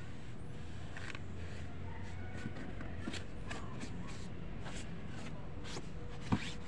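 A hand wiping plastic dressing lotion over a scooter's black plastic panels: soft, irregular rubbing and scuffing, with one sharp tap about six seconds in.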